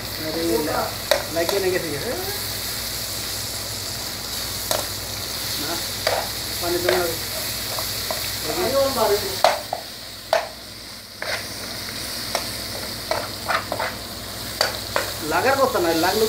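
Sliced onions, tomatoes and green chillies sizzling in a frying pan while a spatula stirs them, scraping and tapping against the pan in frequent clicks over the steady frying hiss.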